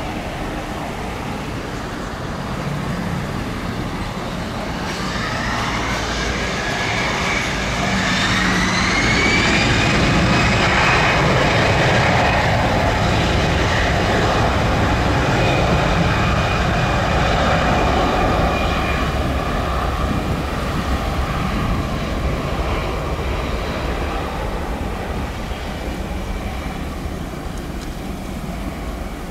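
Airbus A320-200 jet engines spooling up to takeoff power for the takeoff roll: a whine rising in pitch a few seconds in, swelling into a loud, steady jet rumble, which slowly fades near the end as the airliner accelerates away.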